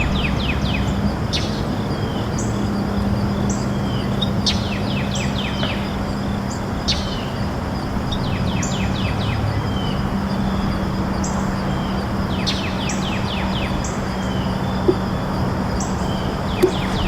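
Birds chirping outdoors: quick runs of short high chirps every couple of seconds, with single thin high notes in between, over a steady low hum and background noise.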